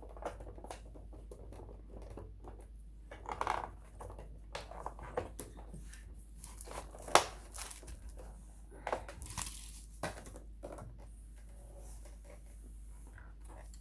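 Scattered clicks, knocks and rustles of hands fitting parts back onto a Husqvarna Viking Designer 1 sewing machine during reassembly, with one sharp click about seven seconds in.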